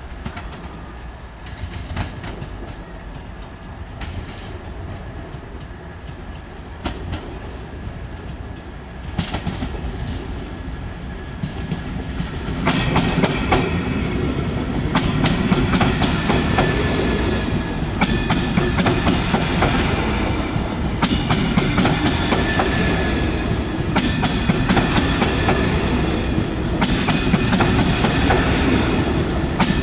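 A double-deck passenger train approaches and then passes close by from about twelve seconds in, its wheels clicking rhythmically over the rail joints.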